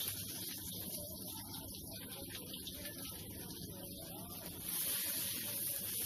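Chopped shallots and garlic sizzling in hot oil in a wok as they are stirred with a metal spatula; the sizzle grows louder about five seconds in.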